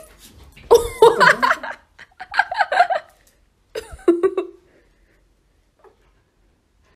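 A person laughing in three short bursts over the first four and a half seconds.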